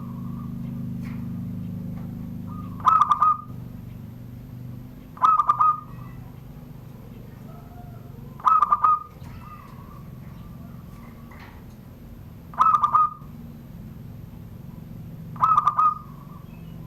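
Zebra dove (perkutut) singing its cooing song in the 'surung gdor' style. Five short phrases of quick coos come a few seconds apart.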